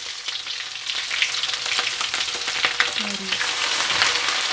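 Onion, green chillies and whole spices frying in hot oil for a tarka, a dense, steady crackle of small pops, stirred with a spatula.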